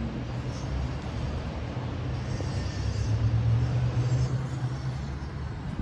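Low rumble of a motor vehicle passing on the street below, swelling about three seconds in and then easing off.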